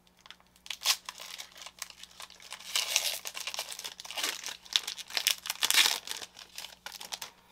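Trading-card pack wrapper being torn open and crinkled, with crackling that is densest in the middle few seconds.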